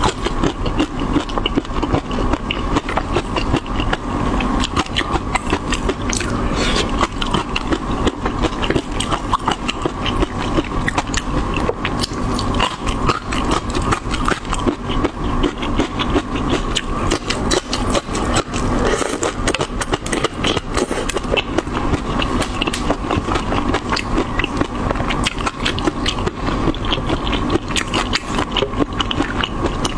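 Close-miked eating of a sauced shrimp: continuous wet chewing, lip-smacking and sucking, with dense quick clicks all through.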